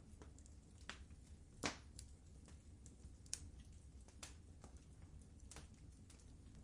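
Wood fire in a fireplace crackling: scattered sharp pops, roughly one a second, the loudest a little over one and a half seconds in, over a faint low rumble.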